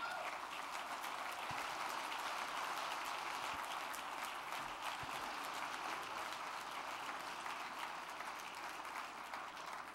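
Audience applauding in a large hall, a dense, steady patter of many hands clapping that cuts off abruptly at the end.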